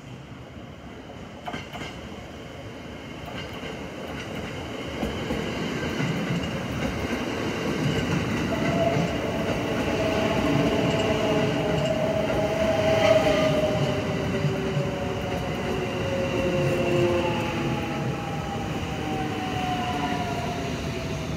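Kintetsu 3200 series electric train arriving and slowing for a station stop, growing louder as it comes alongside. Wheels clatter over the rail joints, and the traction motors whine in several tones that slowly fall in pitch as it brakes.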